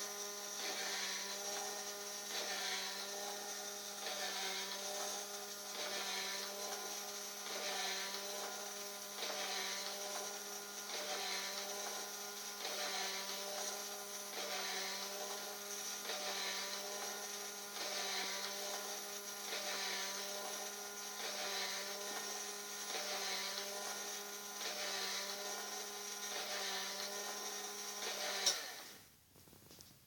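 Small electric motor of a motion-activated owl bird scarer running its wing-flapping mechanism: a steady hum with a regular beat about once a second. Near the end it stops suddenly with a click.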